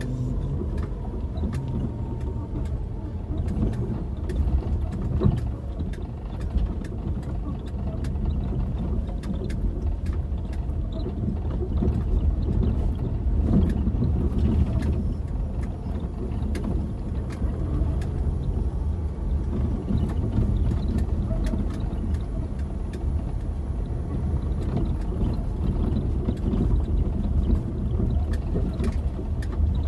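Inside a car driving slowly over a rough, unpaved dirt road: a steady low rumble of engine and tyres, with many small knocks and rattles from the bumpy ground.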